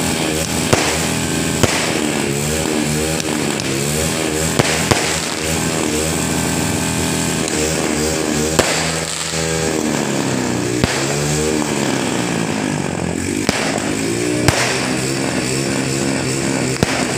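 Motorcycle engines being revved up and down over and over, with sharp firework bangs going off now and then.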